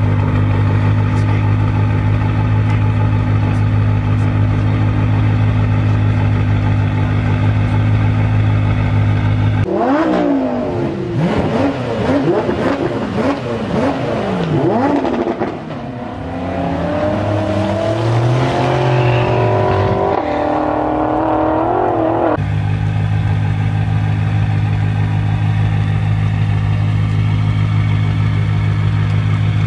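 BMW M5 F10's twin-turbo V8 through a Meisterschaft aftermarket exhaust, held at a steady idle, then free-revved from about ten seconds in: a string of quick blips with the pitch jumping up and down, then a longer climbing rev. It drops back to a steady idle a little past twenty seconds in.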